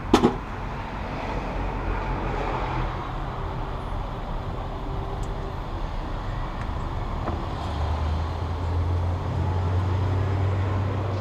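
Steady low running of an engine in the background, its low hum growing stronger about eight seconds in, with a single sharp click right at the start.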